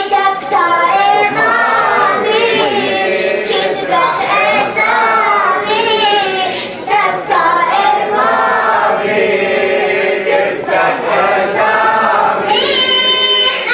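A group of voices singing together in a devotional mawlid chant, in the style of a radood's recitation.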